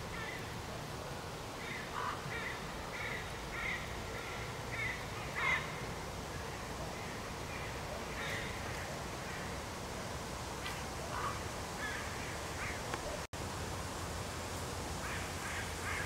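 A bird calling in a run of short calls, about two a second for a few seconds, then single calls now and again, over a steady background hiss.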